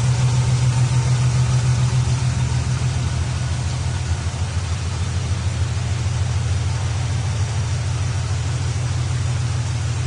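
1956 Chevy Bel Air's engine idling with a steady, low pulsing rumble, just restarted on a freshly swapped battery. The idle eases slightly lower about three seconds in.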